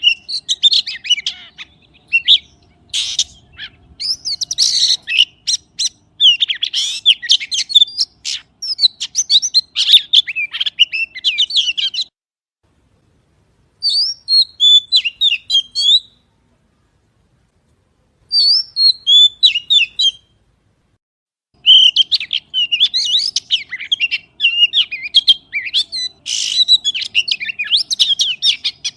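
A magpie calling in fast runs of high chirps, whistled notes and clicks. Near the middle the runs break into shorter phrases with pauses of about two seconds, then pick up again densely near the end.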